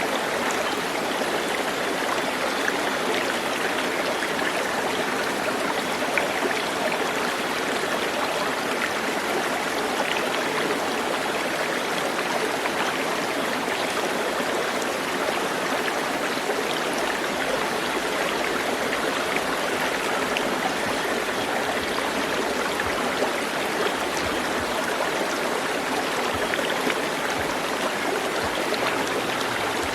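Stream water flowing, a steady, unbroken water noise.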